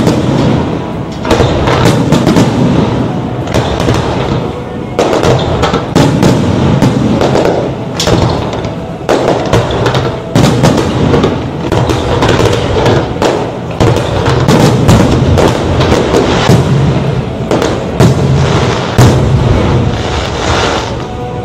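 Fireworks display: aerial shells bursting in rapid succession, with many bangs and booms close together, over music.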